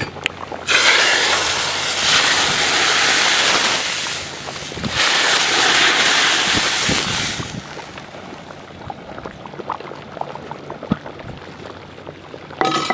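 Hot oil with fried whole spices (a tempering) poured from a ladle into a large pot of boiling chicken curry, sizzling loudly in two spells of a few seconds each. It then dies down to faint crackles.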